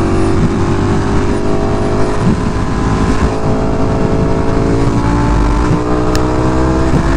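Motorcycle engine running at freeway speed under wind rush on the rider's microphone; the engine note climbs slowly in pitch through the second half as the bike picks up speed.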